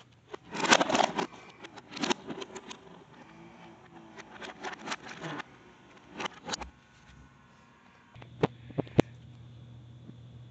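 Handling noise from a VHS cassette being picked up and worked into a VCR: irregular plastic clicks, knocks and rustling. About eight seconds in a steady low hum starts, with a few sharp clicks over it.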